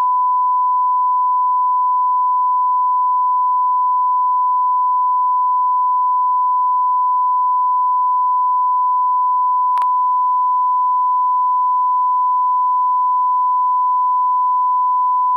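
Censor bleep: one steady, unbroken pure tone laid over a story told on the podcast, masking the speech completely, with one faint click about ten seconds in.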